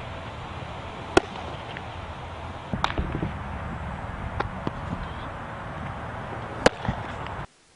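Sharp smacks of a baseball during infield practice. Three loud ones come about a second, three seconds and nearly seven seconds in, with fainter knocks between, over a steady outdoor hiss. The sound cuts off just before the end.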